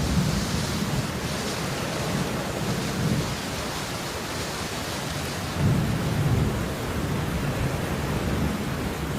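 Steady heavy rainfall, a constant hiss, with low rumbling swells beneath it, the strongest about six seconds in.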